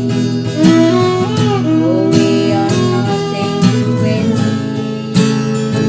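Instrumental break in a Javanese pop ballad: acoustic guitar accompaniment under a lead melody that slides smoothly between notes.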